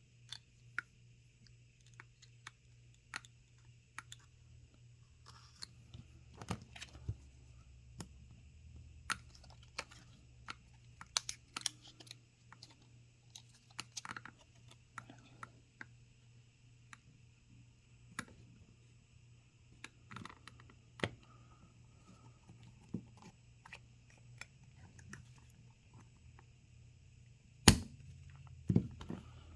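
Irregular small clicks, taps and crunches of plastic prying tools working the glued screen of a Samsung Galaxy Z Flip 5 away from its frame, with a louder knock near the end, over a faint steady low hum.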